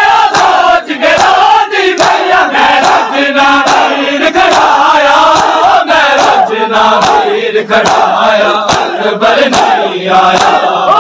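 A large crowd of Shia mourners chanting a noha together, loud and without pause. Sharp slaps of hands beating on chests (matam) come through in a steady rhythm.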